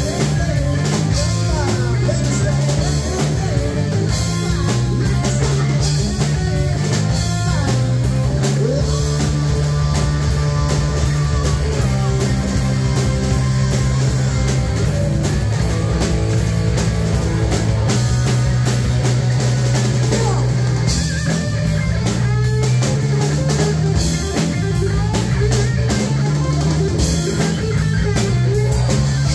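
Live rock band playing: electric guitar, electric bass guitar and a drum kit, loud and steady throughout.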